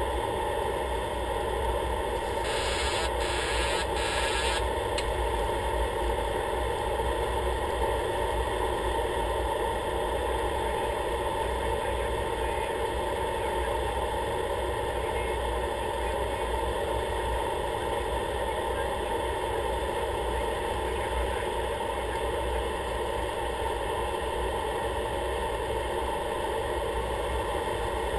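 Steady drone of an aircraft's engine and propeller heard inside the cockpit. A brief burst of hiss comes a few seconds in.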